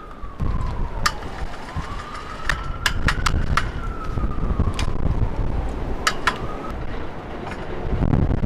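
Strong wind buffeting the microphone with a low rumble, while a distant emergency-vehicle siren wails slowly down and up. Several sharp clicks or knocks sound through the middle.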